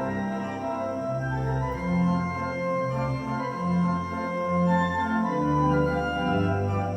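Background music: held keyboard chords over low bass notes that change about once a second.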